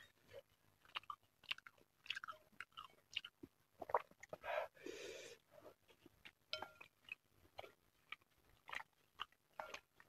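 Close-up eating sounds: a person chewing mini meatballs and egg in spicy broth, soft wet mouth clicks scattered throughout. A little after four seconds in, a noisy sip of about a second from the spoon.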